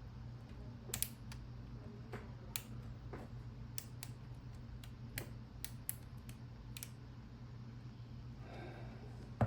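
Number wheels of a four-digit Master combination padlock clicking as they are turned one at a time while the shackle is pulled under tension to feel for the gates. There are a dozen or so irregularly spaced clicks over a steady low hum, with a louder click near the end.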